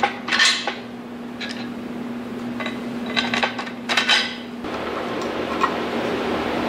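Steel bolts, nuts and shims clinking and clicking against each other and the steel bearing housing as they are handled: several short metal clinks, irregular, then a single click near the end over a steadier background noise.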